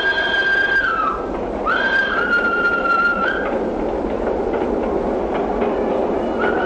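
Steam tram locomotive's whistle blowing in short blasts, the second stepping down a little in pitch partway, over the rumble and clicking of the tram running on its street rails; another blast starts right at the end.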